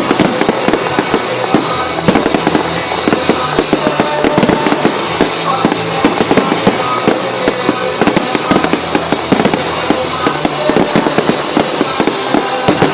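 Fireworks crackling and popping in a dense, rapid stream, many reports a second, over loud music from a show soundtrack.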